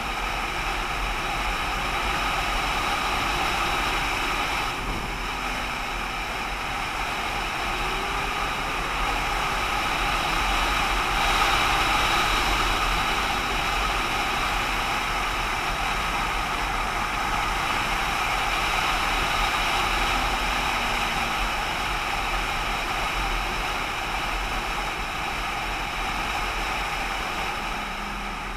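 Steady driving noise of a vehicle on the move: road and wind noise with the engine running underneath, swelling a little now and then.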